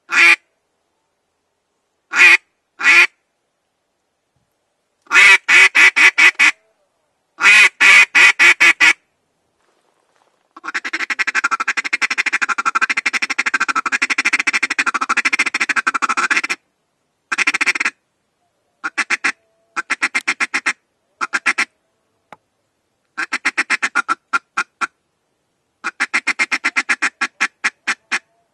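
Hand-blown duck call sounding the duck's basic call: short quacks, first one or two at a time, then runs of about six. About ten seconds in it switches to the feeding call, a fast continuous chatter lasting about six seconds that imitates a feeding flock, then sparser short bursts of the same call that imitate single ducks feeding.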